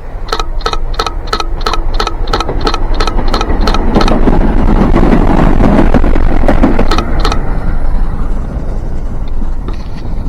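Train passing on the railway: a run of regular sharp clicks, about three a second, for the first few seconds, then a louder rushing noise through the middle with two more clicks near seven seconds, easing off near the end.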